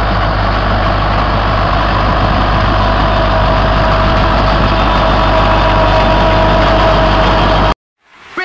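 Ursus C-360 tractor's four-cylinder diesel engine running steadily while pulling a Morra baler that is picking up hay, a loud continuous drone with a deep rumble and a couple of steady tones over it. The sound cuts off suddenly near the end.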